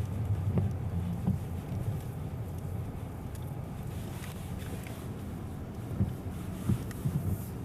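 Car's low engine and road rumble, strongest in the first second and then easing to a steadier, quieter level, with a few faint knocks.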